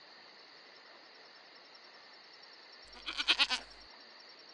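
A goat bleats once about three seconds in, a single quavering bleat lasting just under a second, over a faint steady background.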